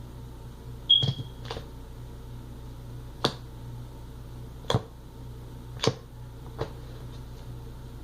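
Slime being squeezed and pressed, giving off about six sharp popping clicks at irregular intervals, the loudest about a second in, over a steady low hum.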